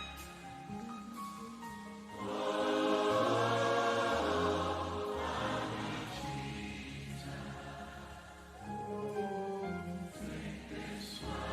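Slow gospel worship song: many voices singing together over held bass and keyboard chords, the singing swelling loudest a couple of seconds in, then easing.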